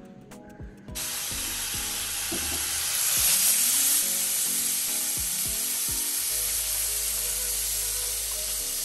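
Small cocktail sausages sizzling in hot oil in a frying pan, a steady hiss that starts suddenly about a second in and is loudest a couple of seconds later.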